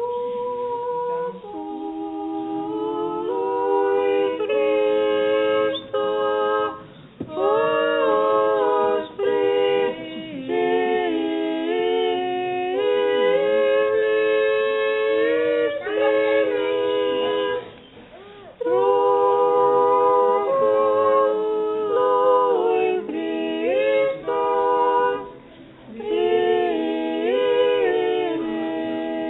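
An Orthodox liturgical chant sung a cappella by a choir in several-part harmony. It comes in long phrases with short pauses between them.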